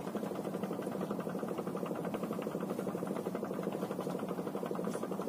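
An engine running steadily with a rapid, even pulse and a low hum.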